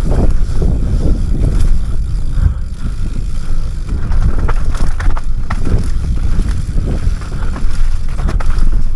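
Mountain bike riding down a rough dirt trail: wind buffeting the helmet-mounted camera's microphone over the rumble of tyres and a rattling frame, with several sharp knocks as the bike hits bumps.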